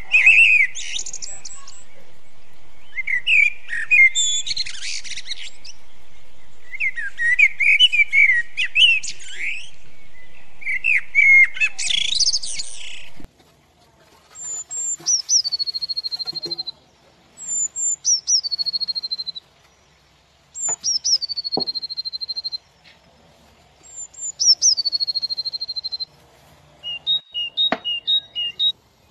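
Birds chirping in warbling phrases over a steady hiss for about thirteen seconds. The hiss then stops and four falling whistled calls follow, a few seconds apart. Near the end comes a run of quick two-tone beeps.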